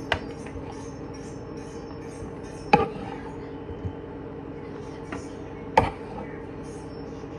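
Sharp knocks of a metal spoon striking a wooden cutting board as fried chicken is cut up, the two loudest about three seconds apart with a few fainter taps between, over a steady low hum.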